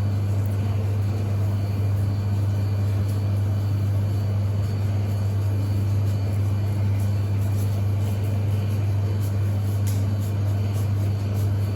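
A steady low-pitched hum that holds at one level throughout, with a faint hiss above it.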